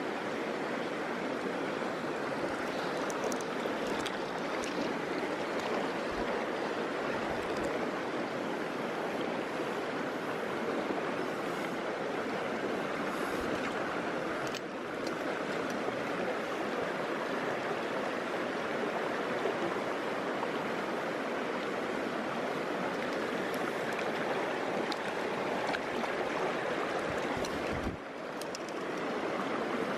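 A small stream's water rushing steadily over rocks, briefly dipping in level about halfway through and again near the end.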